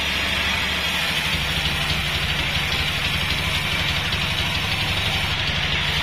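Band sawmill running steadily without cutting, giving an even low machine drone with a high hiss over it.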